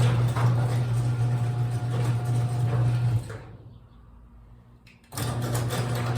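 Garage door opener running with a steady low hum as the door travels; it stops about three seconds in and starts up again abruptly about two seconds later.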